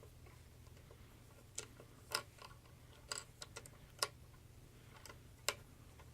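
Hard plastic toy parts clicking and knocking as a scope attachment is pressed onto an action figure's gun: about eight sharp, irregular clicks, over a low steady hum.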